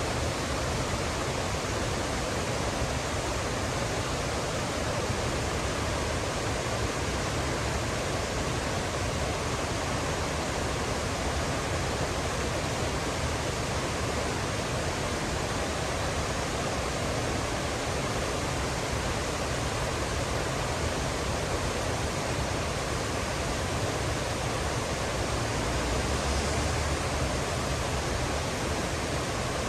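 Mountain stream water rushing steadily over rocks, a constant roar of flowing water.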